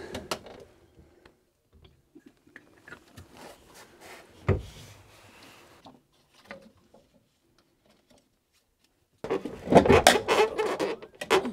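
Scattered knocks and clunks of metal and wood as a marine diesel engine is manoeuvred by hand onto its mounts, with one sharper knock about four and a half seconds in. From about nine seconds in comes a loud run of rapid clattering and banging.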